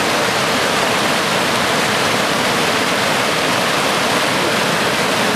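Fast floodwater rushing and churning white along a wooden boat's hull, a loud, steady rush.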